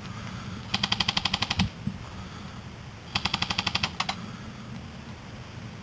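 Airsoft gun firing two short full-auto bursts, each a rapid even rattle of about fourteen shots a second lasting just under a second. The first comes about a second in, the second about three seconds in.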